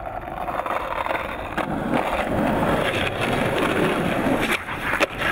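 Skateboard wheels rolling on asphalt, growing louder over the first couple of seconds. Near the end a sharp clack of the board, the tail popping for a 360 flip, with rolling again after it.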